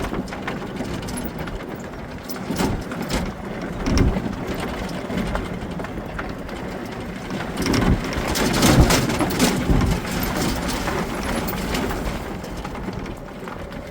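Golf cart driving along, its motor running steadily under many small knocks and clicks, loudest around eight to nine seconds in.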